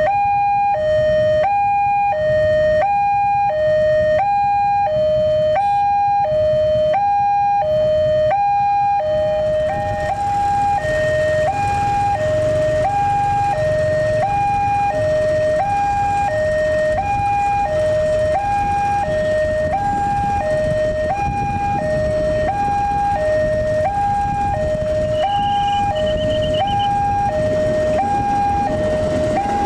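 Railway level crossing warning alarm sounding a two-tone high-low signal, alternating about once a second without a break. About ten seconds in, a steady rushing noise joins it.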